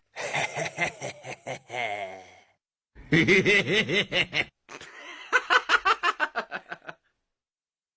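Three bouts of laughter, each a run of short pulsed 'ha' sounds. The last is the quickest, at about seven pulses a second, and it breaks off about a second before the end.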